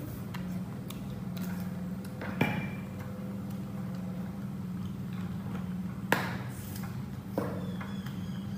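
Steel cookware being handled: three sharp metallic clanks, the first about two and a half seconds in with a brief ring, the other two near the end. A steady low hum runs underneath.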